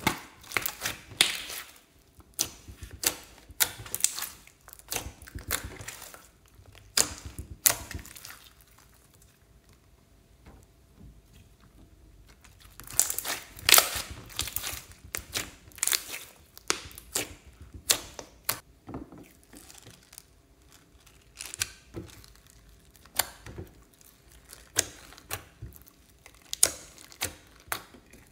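Hands kneading and stretching thick white slime: sticky squelches and crackling pops in irregular bursts, with a quieter lull partway through.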